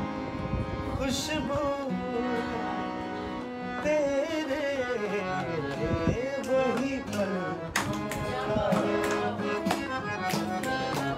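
A man sings an Urdu ghazal in a slow, ornamented line over sustained harmonium chords. Tabla strokes come in quickly and repeatedly for the last third.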